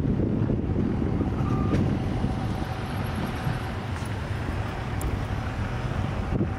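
Steady outdoor rumble of passing traffic, with wind noise on the microphone.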